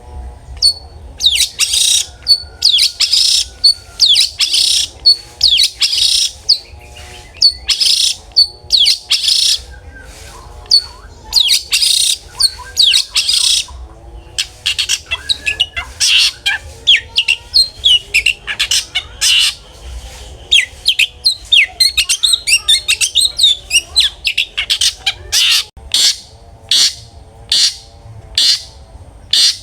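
Long-tailed shrike (cendet) singing loudly in harsh, scratchy runs of rapid calls broken by short pauses. Near the end the song turns into a string of separate sharp, evenly spaced notes.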